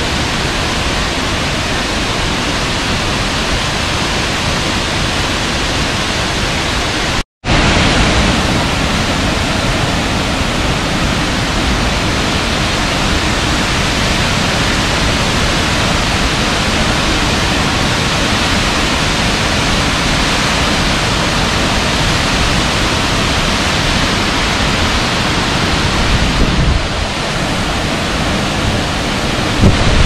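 Large waterfall plunging down a rock face: a loud, steady rush of falling water. It cuts out for an instant about seven seconds in, then returns slightly louder, with a few low rumbles near the end.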